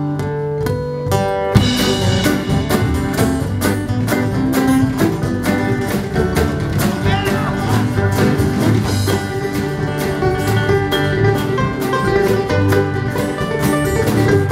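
A live acoustic string band of strummed acoustic guitars and upright bass playing an uptempo bluegrass-style tune. After a held chord the band comes in hard about a second and a half in with fast, driving strumming.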